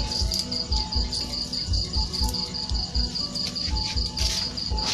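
Crickets chirping in a steady, fast high trill, over background music with a low beat about twice a second.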